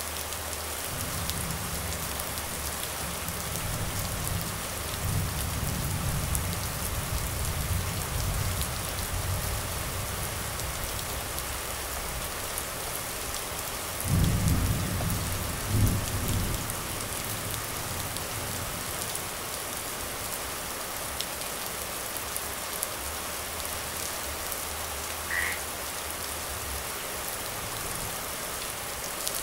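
Heavy rain pouring steadily onto a flooded street and trees, with low thunder rumbling through the first several seconds, a louder rumble about halfway through, and a fainter one near the end.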